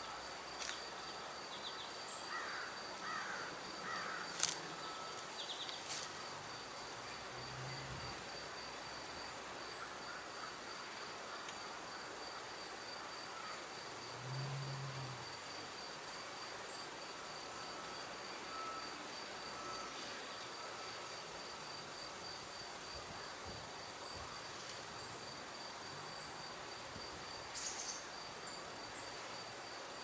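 Insect chirping: a steady high trill of evenly spaced pulses, cricket-like. A few sharp clicks stand out, the loudest about four seconds in, with others just before and after it and two more near the end.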